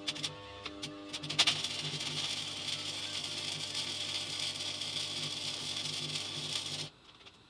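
Stick (SMAW) arc welding with a cheap AC buzz-box welder and 6013 rods. A few scratchy clicks come as the arc is struck, then a steady crackle and hiss of the burning arc over a low buzz runs for about five seconds and cuts off suddenly near the end as the arc is broken.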